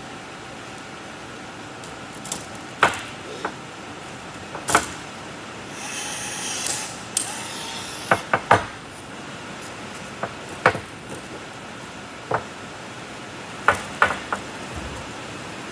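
Cordless blind-rivet tool setting rivets in an aluminium and stainless-mesh grille: a brief motor whir about six seconds in, with a dozen or so sharp metallic clicks and taps spread through, some in quick twos and threes, as rivets are pulled and handled. A steady hiss runs underneath.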